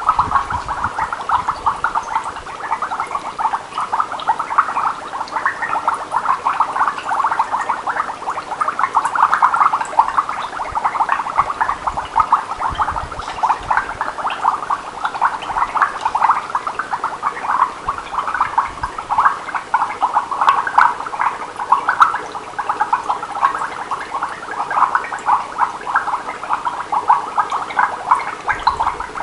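Exhaled breath blown through a drinking straw into a glass of water, bubbling continuously in quick, dense pops. The carbon dioxide in the breath is being bubbled through the water to acidify it.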